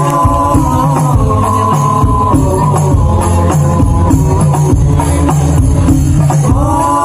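Hadroh ensemble: rebana frame drums beating a dense rhythm under voices singing a sholawat in long held, gliding notes, with a new sung phrase starting near the end.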